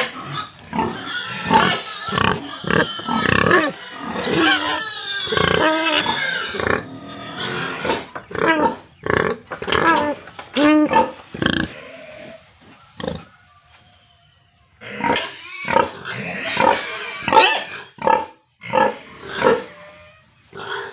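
Several pigs squealing and grunting, the calls overlapping in a dense chorus for the first several seconds, then coming in shorter separate bursts with a brief lull just past the middle.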